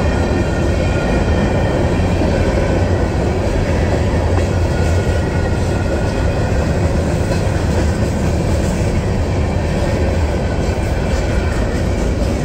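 CSX freight train's gondolas and boxcars rolling steadily past over a grade crossing: a continuous rumble of steel wheels on the rails.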